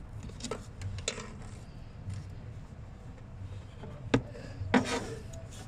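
Hands working around a purge valve and its hoses and electrical connector in an engine bay: rubbing and scraping of rubber hose and plastic, with scattered sharp clicks, the loudest about four seconds in, followed by a short clatter just before five seconds.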